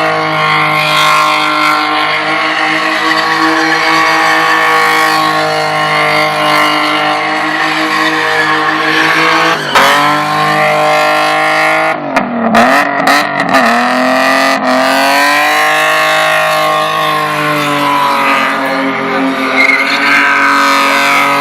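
Car engine held at high revs during a burnout, rear tyres spinning and squealing. About ten seconds in the revs drop sharply, hunt up and down for a few seconds, then climb back and hold high again.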